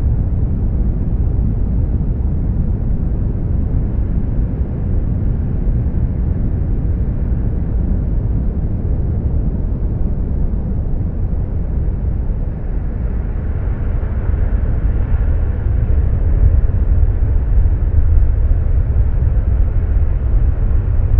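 Breaking surf heard as a deep, muffled roar with no clear highs, growing louder and hissier about two-thirds of the way through as the whitewater crashes.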